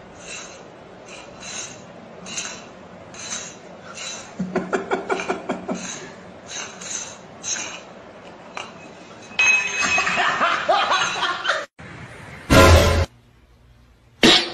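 Light, repeated clinks of a small metal bowl as a rabbit eats from it, with bursts of laughter. A short, loud noise comes near the end.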